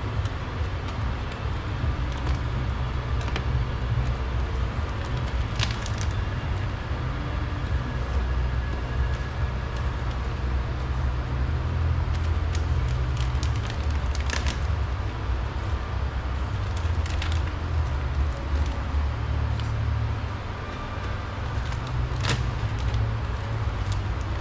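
A steady low rumble with a few scattered sharp clicks and cracks of a plastic trim piece being worked off a car door.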